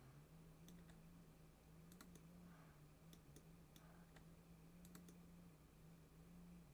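Faint, scattered clicking of a computer mouse and keyboard, about a dozen clicks at uneven intervals, over a steady low electrical hum.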